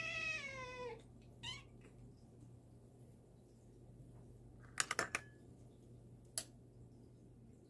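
An orange-and-white tabby cat meows once, a long call falling in pitch, then gives a short second meow, begging for food. About five seconds in comes a quick cluster of sharp clicks, and one more click about a second and a half later.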